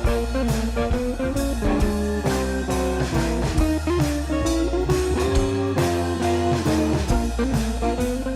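Background music: a guitar-led blues-rock track with bass and a steady drum beat.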